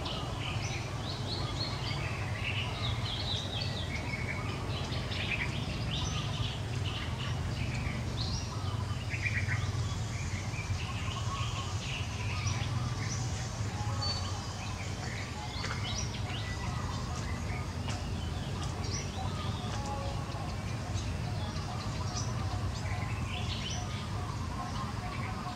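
Wild birds chirping and calling: many short, scattered chirps over a steady low hum of outdoor background noise.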